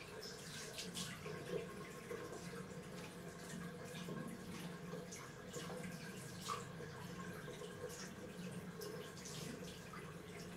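Tap running steadily into a bathroom washbasin, with faint splashes and drips as hands are washed under it.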